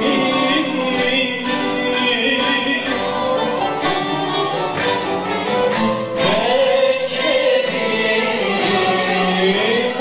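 Turkish zeibekiko song played live by an ensemble of guitars and long-necked lutes, with a voice singing the melody.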